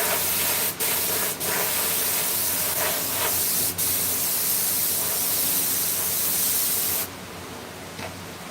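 Pressurised spray hissing, as from a spray gun or air nozzle, in one long pull broken by three brief pauses, the first two close together about a second in, the third near four seconds. It cuts off about seven seconds in.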